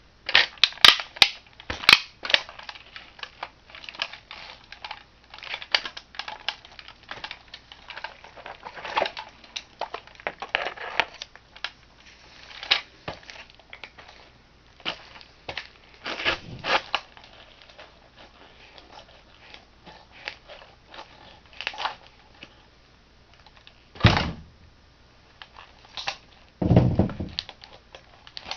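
A plastic toy car being crushed under a shoe: irregular crackling, snapping and crunching of breaking plastic, with two heavier thuds near the end.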